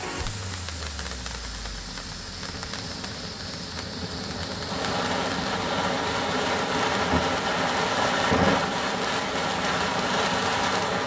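Firework fountain (Vulkan) burning: a steady spraying hiss with fine crackling, growing louder about five seconds in.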